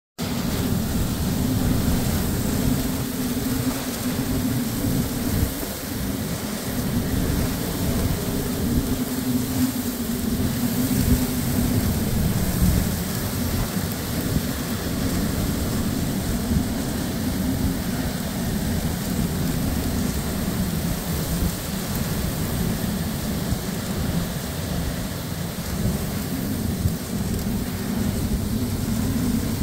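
Hurricane downpour: heavy rain pouring steadily with wind, a continuous hiss over a deep, uneven rumble that swells and eases in gusts, heard from a car.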